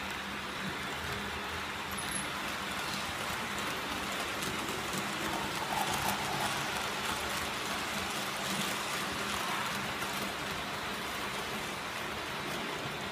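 H0-scale model trains rolling past on the layout's track: a steady rattling hiss of small wheels running over the rails, with a low motor hum underneath, slightly louder about six seconds in.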